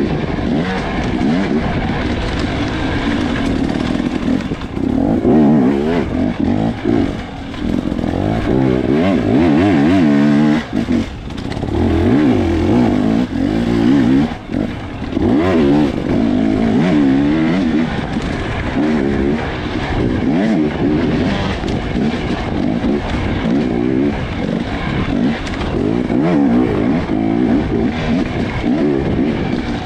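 Dirt bike engine heard close from the rider's helmet, revving up and down again and again as the throttle is worked hard. The revs drop away briefly about ten and fourteen seconds in.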